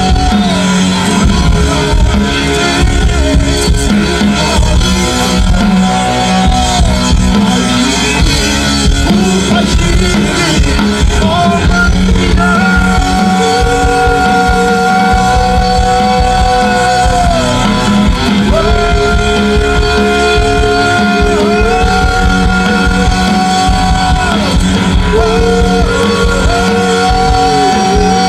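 Live rock band playing amplified: a male vocalist sings into a microphone over electric bass, drum kit and keyboard. In the second half he holds long notes that slide down in pitch as each one ends.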